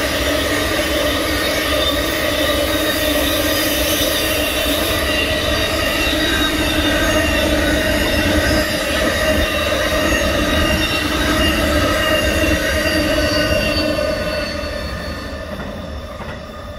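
Grain hopper wagons of a freight train rolling past close by, their wheels squealing in several steady high tones over a low rumble. The sound fades from about fourteen seconds in as the last wagon goes by and draws away.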